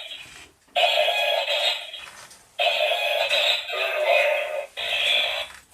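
Remote-controlled toy robot's built-in speaker playing electronic sound effects: three separate clips, each a second or two long, with short gaps between.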